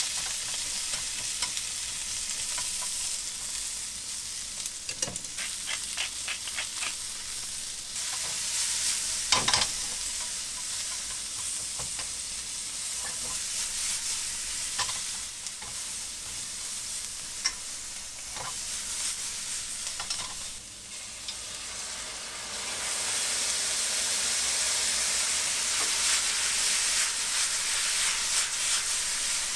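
Sliced onions sizzling in a hot frying pan while being stir-fried, with scattered clicks of the utensils against the pan. The sizzle grows louder about two-thirds of the way through.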